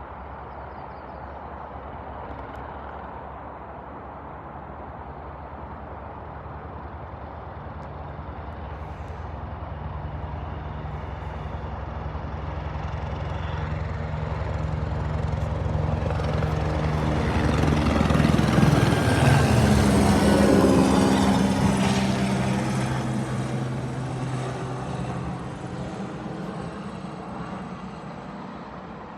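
Helicopter on a low, fast flyover. Its rotor and engine sound builds steadily, peaks about two-thirds of the way through as it passes, drops in pitch, and then fades away.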